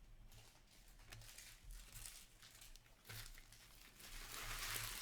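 Faint crinkling and rustling of trading-card pack wrappers being handled, growing louder near the end.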